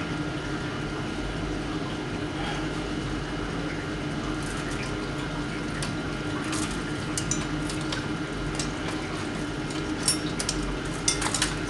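Light metallic clinks and taps from tools being worked loose from a chain after coming out of an electrolysis tank, in scattered clusters, over a steady background hum.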